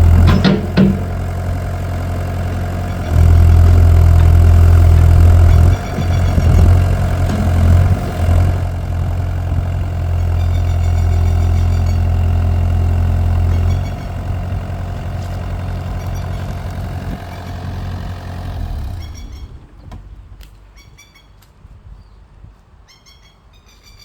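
A motor running steadily with a low hum, getting louder and softer a few times, then cutting out near the end.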